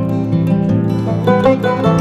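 Background music of plucked guitar notes, a new note starting every fraction of a second.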